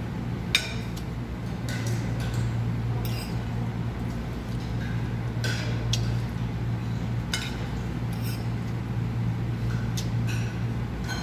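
Metal spoon and fork clinking and scraping on a ceramic plate while eating, a dozen or so short clinks scattered irregularly, over a steady low hum.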